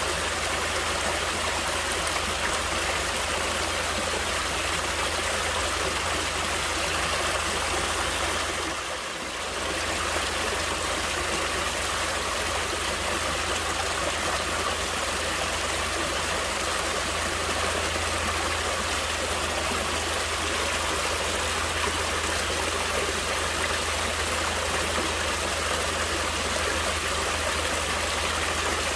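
Natural flowing water running steadily in an even rush, with a brief dip in level about nine seconds in.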